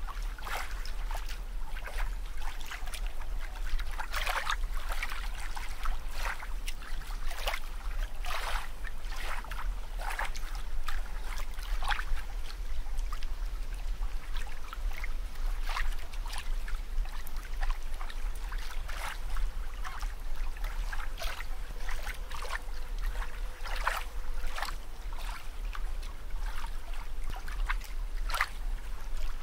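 Water bubbling and trickling, with frequent short, irregular splashy blips over a steady low hum.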